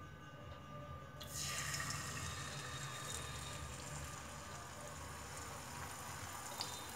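Beaten egg sizzling in hot oil in a non-stick frying pan. The hiss starts sharply about a second in as the egg hits the oil, then settles into a steady sizzle while the rest of the egg is poured.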